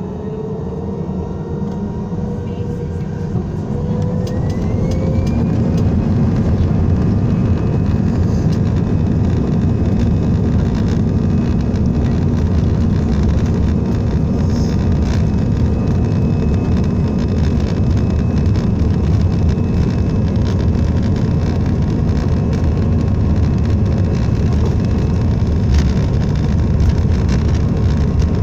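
Airbus A319 jet engines heard from inside the cabin, spooling up to takeoff thrust with a rising whine over the first few seconds and then running at a steady high level through the takeoff roll.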